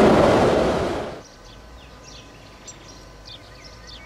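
ŽSR class 405.95 electric rack-railway train running into the station with a loud, even rumble that dies away sharply about a second in. After that, birds chirp over a quiet background with a faint steady hum.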